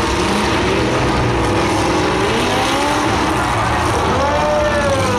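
Several demolition derby car engines running and revving together in a loud, continuous din, their pitch rising and falling.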